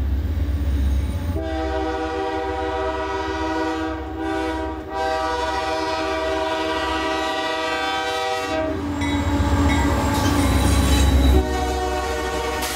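Canadian Pacific diesel locomotive sounding its air horn at a grade crossing in long, held blasts of several notes at once. The low rumble of its engine swells as it passes close by near the end.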